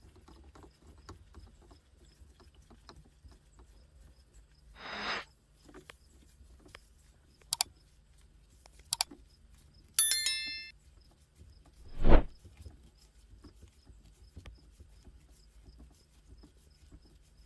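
Sparse handling noises as a shift knob is spun onto the threaded shifter: faint clicks, a short rustle about five seconds in, a ringing clink about ten seconds in, and a sharper knock about twelve seconds in.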